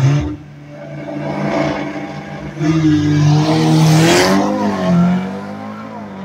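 Two Audi hatchbacks, a red S3 among them, launching side by side off a drag-strip start line: their engines rev up sharply at the launch and then run hard at high revs as they accelerate past, with a rush of noise about four seconds in and a brief dip in engine pitch at a gear change before the sound pulls away down the strip.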